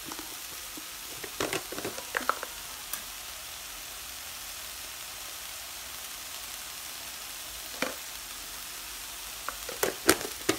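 Ground pork and wood ear mushroom filling sizzling steadily in a frying pan. Short clicks and scrapes of wooden chopsticks stirring it come about a second and a half in, again near 8 seconds, and several near the end.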